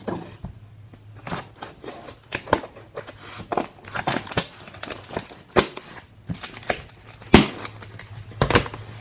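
Scissors cutting and snipping the packing tape on a small cardboard box, with irregular clicks, scrapes and rustles of the cardboard and one louder knock late on.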